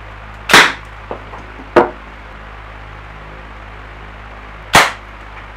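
Three sharp shots from a home-made 3D-printed gun firing 3D-printed rounds loaded with matchstick powder. They come about half a second in, again just over a second later, and once more near the end, with the first and last the loudest, each ringing briefly in a small room. A steady low hum runs underneath.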